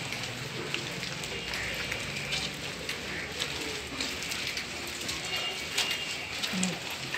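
Footsteps and shuffling of a large group walking together along a street, an even patter of many small scuffs and clicks.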